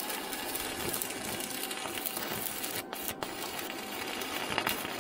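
Electric arc welding on steel rods: the arc gives a steady crackling hiss that dips briefly twice just after halfway.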